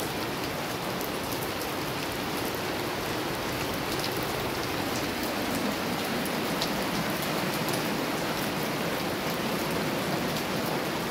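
Heavy rain falling into shallow floodwater on a street: a steady hiss of drops splashing on the water surface.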